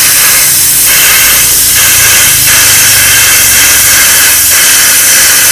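Plasma cutter torch set to 40 amps, its arc hissing steadily and without a break as it cuts through two stacked steel sheets at once.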